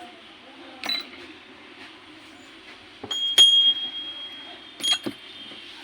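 Brass hand bell rung with a few sharp strikes. The loudest, about three and a half seconds in, rings on as a clear high steady tone for about a second and a half, and two quick strikes follow near the end.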